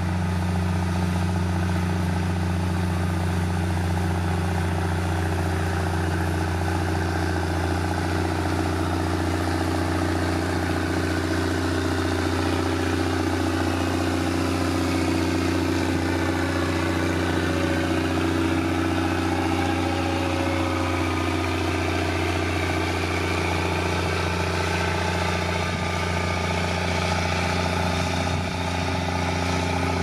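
Heavy road-construction machine's diesel engine running steadily at an even speed, with a fainter engine note that rises and falls in pitch about midway.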